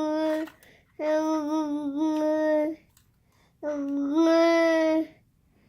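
A child singing long wordless held notes in short phrases with pauses between: one note ending about half a second in, then two more long notes, the last stepping up in pitch partway through.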